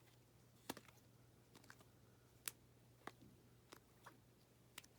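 Near silence with a handful of faint, sharp clicks at irregular intervals: trading cards being handled and shuffled through.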